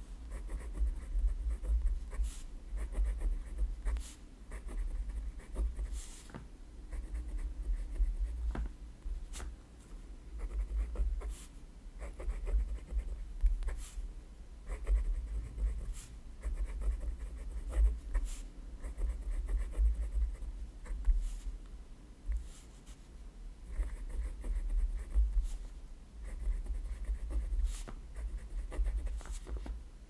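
Pen writing in cursive on a grid-paper notebook: scratchy strokes in short runs with brief pauses between words, a few sharp ticks, and a low rumble under the strokes.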